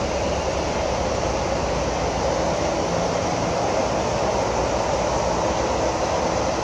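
Steady rumble of parked diesel coaches idling, an even engine drone with no changes in pitch or level.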